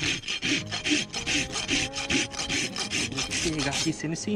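Steel hoof rasp drawn back and forth across the sole and wall of a horse's dry, hard hoof, in quick scraping strokes about three to four a second.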